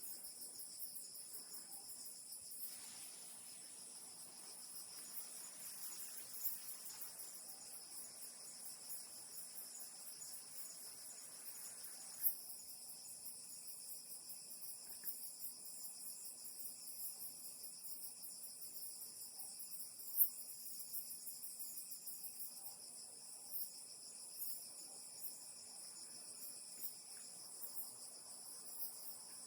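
Steady chorus of crickets, a high, continuous trilling in several pitch bands. A couple of sharp clicks stand out, about twelve and twenty seconds in.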